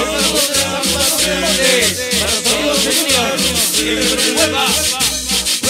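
Dance music played in a DJ mix, with a steady pulsing bass beat, busy high percussion and swooping pitched sounds over it.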